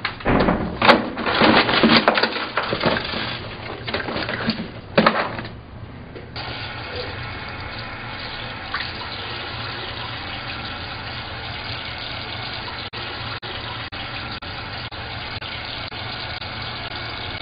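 Water running, as from a tap or shower, with irregular loud splashing surges for the first few seconds, then a steady even flow from about six seconds in.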